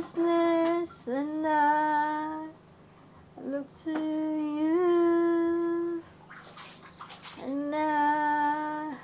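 Unaccompanied voice singing four long held notes, each one to two seconds long, with short pauses and breaths between them.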